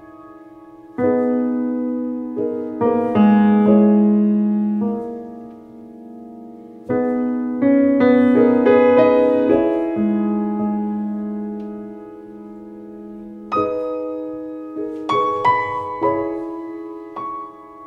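Slow, sparse piano music: chords struck every few seconds and left to ring and fade, with a few quicker notes near the end.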